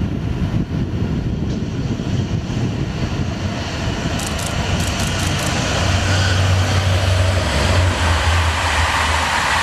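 Diesel locomotive hauling a passenger train, approaching and passing below. Its engine rumble grows and is heaviest about six to nine seconds in, then the rushing of the coaches' wheels on the rails takes over.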